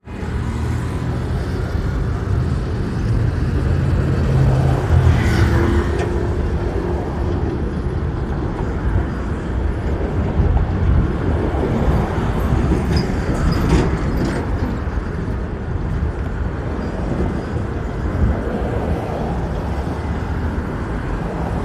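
Steady road traffic noise with a low vehicle engine rumble.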